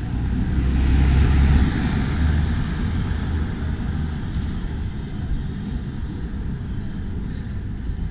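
Street traffic, with a motor vehicle passing close by: its engine rumble and tyre hiss swell to a peak about a second and a half in, then fade back into steady traffic noise.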